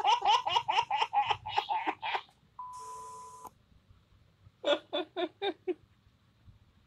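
A baby laughing in rapid, high-pitched bursts for about two seconds. Then a steady electronic beep of about a second with static hiss over it, and after that a man laughing in five quick bursts.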